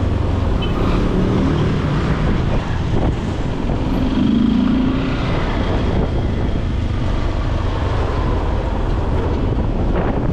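Yamaha Lander 250 single-cylinder motorcycle engine running on the move, a steady drone with a louder swell about four seconds in.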